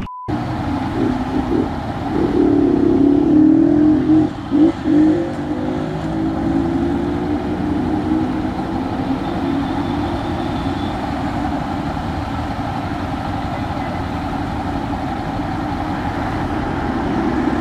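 Street traffic: motor vehicle engines passing steadily, loudest about two to five seconds in, where an engine's pitch rises as a vehicle speeds up past.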